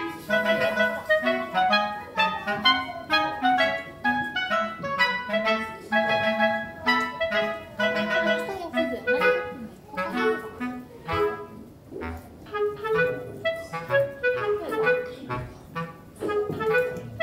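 Background instrumental music: a lively melody of quick, short notes over a lower bass line.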